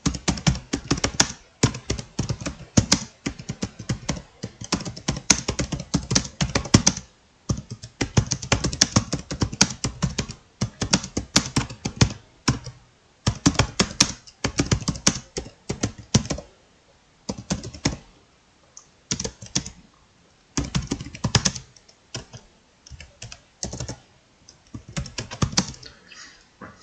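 Computer keyboard being typed on quickly: dense runs of keystroke clicks broken by short pauses of about a second, as a paragraph is typed in a speed test.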